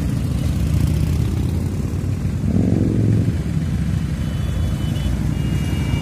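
Motorcycle engines running as bikes pull out and ride off, a steady low rumble with one bike revving up about two and a half seconds in.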